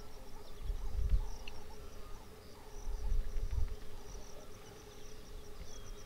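Insects chirping in a steady, high, pulsing chorus over a steady low drone, with low rumbles about a second in and again around three seconds in.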